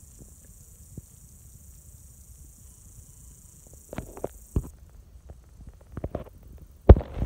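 A few light clicks and knocks of equipment being handled from about four seconds in, then near the end one loud, sharp crack: a compound bow being shot at a whitetail buck. Brief rustling follows it.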